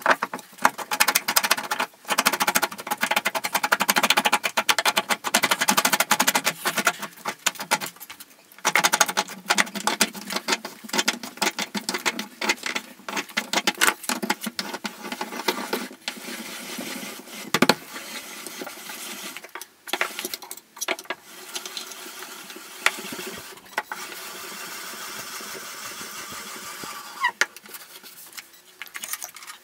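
Homemade plywood bench vise being assembled and wound: steel guide rods and an M20 threaded screw rattle and click against the wooden jaws in a dense run of clicks, thinning out after about sixteen seconds.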